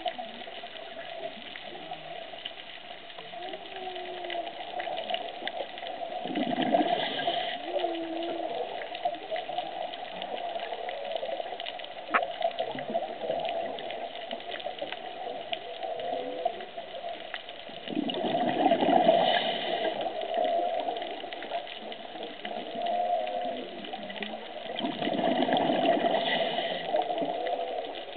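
Underwater recording of whale calls: short gliding moans over a steady undertone, with a constant crackle in the water. Three times, a diver's regulator exhaust bursts out in a rush of bubbles.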